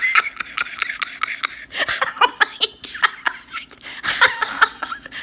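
A woman laughing hard, a long run of quick, breathy laughs, several a second.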